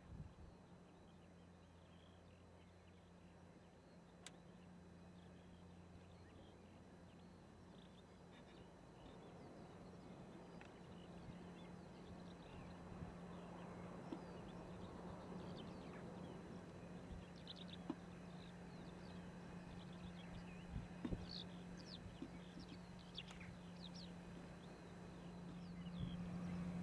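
McCormick ZTX 280 tractor engine humming steadily while pulling a harrow, faint at first and growing louder as it comes closer, with gulls giving many short calls over the field, most of them in the second half.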